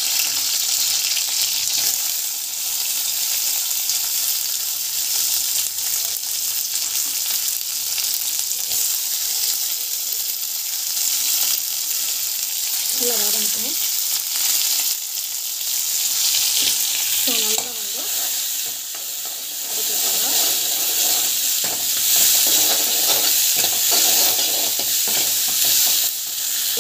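Dried red chillies and chopped onion sizzling steadily in hot oil in a pan. Toward the end a spoon stirs them, scraping in the pan.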